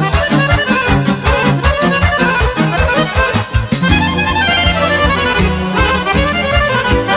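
Live Serbian folk band playing an instrumental passage led by two accordions: quick runs of short notes over a bass line and a steady drum beat.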